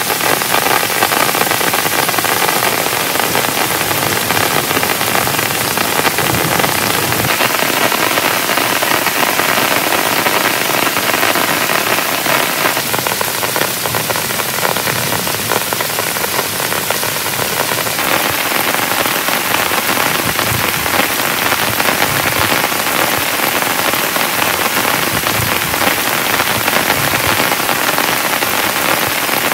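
Heavy rain falling steadily on a tent, a dense, loud, unbroken patter of drops.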